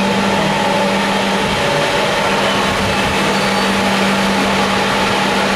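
A passenger train standing at the platform, its onboard equipment humming steadily with a constant low tone and a fainter higher one.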